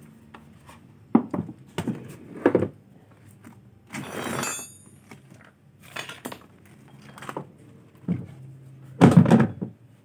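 Plastic cabinet of a Sharp top-loading washing machine knocking, thudding and scraping as it is tipped from its side back onto its base on a concrete floor: a run of separate knocks, a scraping rush about four seconds in, and the loudest thump and scrape near the end.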